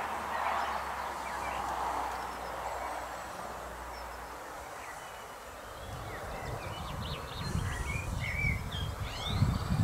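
Outdoor meadow ambience: a steady rushing hiss, then low rumbling from about six seconds in, with small birds chirping and calling from about seven seconds in.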